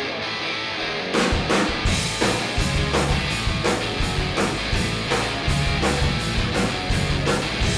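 Live rock band playing an instrumental passage: electric guitar for about a second, then drums and bass come in with a steady, driving beat.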